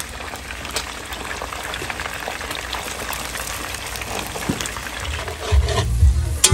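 Whole tilapia frying in a pan of hot oil: a steady sizzle full of small crackles and pops. About five and a half seconds in, a louder low rumble comes in over it.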